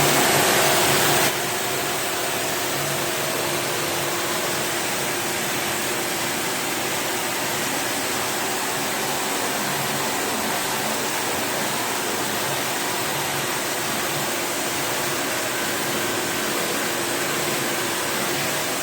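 Steady hiss of a water spray washing an air conditioner's heat exchanger coil, with a faint steady hum underneath. It is louder for about the first second, then settles to an even level.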